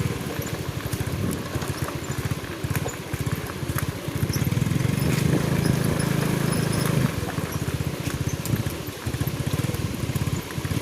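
Strong wind buffeting the microphone: a low, fluttering rumble, heaviest from about four to seven seconds in.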